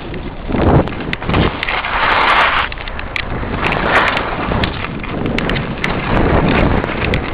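Wind buffeting the microphone together with the hiss and scrape of skis on snow, rising and falling in several swells, with scattered sharp clicks.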